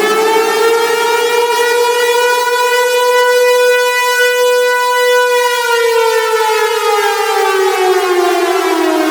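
Civil defense warning siren sounding one long wail. Its pitch climbs slowly, holds high for a couple of seconds in the middle, then slides steadily down over the last few seconds.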